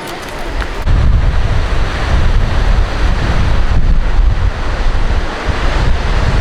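Wind buffeting the microphone: a heavy, fluttering low rumble that jumps up about a second in, over a steady rushing noise.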